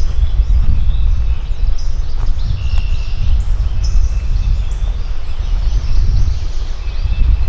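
Low, steady rumbling noise on the microphone, with several small birds chirping high over it in short, scattered calls.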